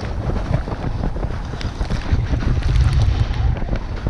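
Heavy wind buffeting the GoPro's microphone on a fast sled descent, over the scrape of the sled's runners on packed snow, with scattered small clicks and knocks.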